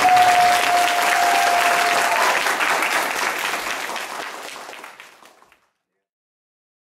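Audience applauding with many hands, a single held tone riding over it for the first two seconds. The clapping fades away over about three seconds and stops.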